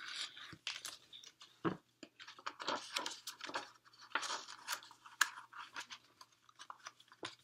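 Pages of a hardcover picture book being turned and handled: irregular paper rustling and crinkling with small taps.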